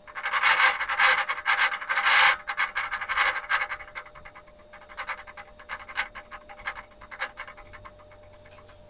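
Servo motor of a Dactron Auto STAC ST1000W voltage regulator driving its brush along the variac winding as it adjusts to a rising input voltage: a scratchy rubbing sound, loud and continuous for about the first two seconds, then breaking into short scrapes that fade out near the end, over a faint steady hum.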